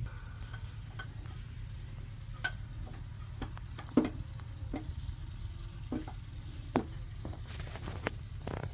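Scattered metallic clicks and knocks as parts are handled in a stripped-down engine block, the loudest about four seconds in and again near seven seconds, over a steady low rumble.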